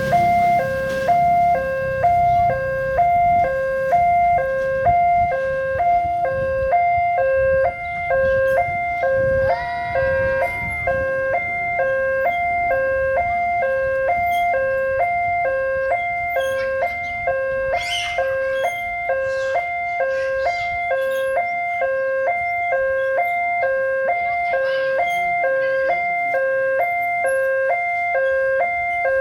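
Railway level crossing warning siren sounding its common two-tone alarm: a high and a low tone alternating steadily, about one high-low cycle a second, the signal that a train is approaching. A low rumble runs under it during the first ten seconds or so.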